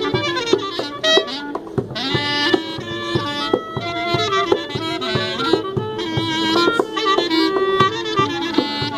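A clarinet and a gold-coloured metal wind instrument playing an ornamented, traditional-style melody together, with quick runs and slides between notes.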